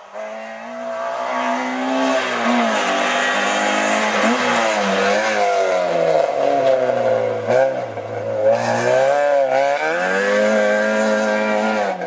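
Small hatchback race car's engine at high revs, its pitch climbing and dipping several times as the driver accelerates, shifts and lifts between turns.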